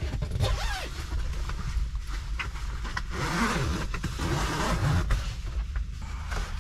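Rustling of the pop-up camper's canvas tent fabric as a window flap is rolled up, over a steady low rumble of wind.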